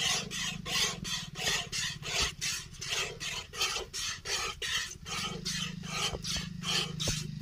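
Cow being milked by hand: milk squirting in jets into a plastic bowl, an even rhythm of short hissing strokes, about three a second, over a steady low hum.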